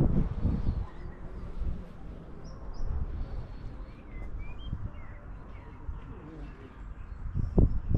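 Small birds chirping in short, scattered calls over an uneven low rumble of wind on the microphone, with a few footsteps on cobblestones near the end.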